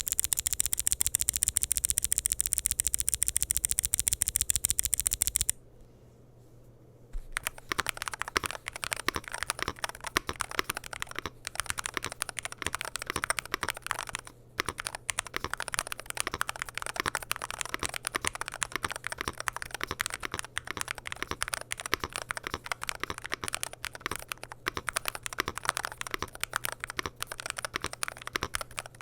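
Womier SK75 TMR keyboard with Outemu TMR magnetic switches and PBT keycaps in an aluminium case. First comes about five seconds of very fast, evenly spaced key clicking, then a short pause, then ordinary typing with irregular keystrokes for the rest of the time. A faint low hum runs underneath.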